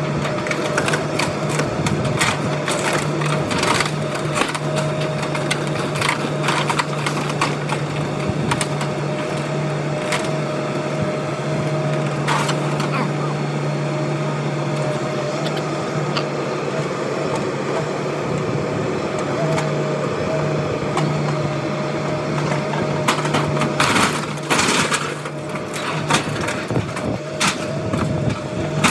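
Bobcat mini excavator's diesel engine running steadily as it tears down an old wooden shed, with repeated sharp cracks and crunches of breaking wood, heaviest about 24 to 26 seconds in.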